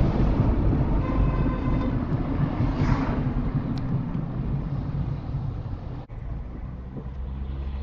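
Car cabin noise picked up by a dash cam while driving: a steady low engine and tyre rumble. About six seconds in it cuts to a quieter, steadier low hum with the car almost stopped.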